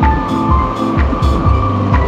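Background music with a steady drum beat and held tones.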